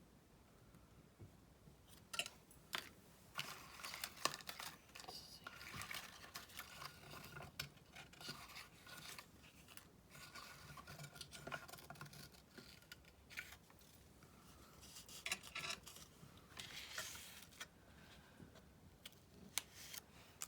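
Paper being cut and handled for a collage: irregular snips of scissors through paper, with rustling and crinkling of paper pieces, in spells with short pauses between.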